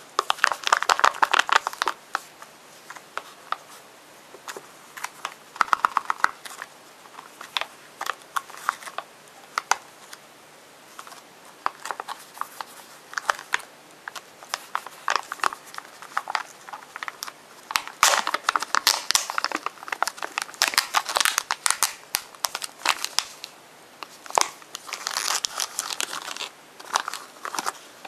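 Crinkly plastic wrapper of a Num Noms blind pack crinkling and tearing as it is pulled open by hand, in irregular bursts with short pauses. Later the plastic cup inside has its foil lid peeled off and is handled, with louder crinkling.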